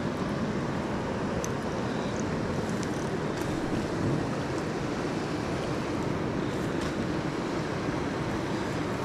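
Steady rush of a river's flowing water, with a few faint clicks.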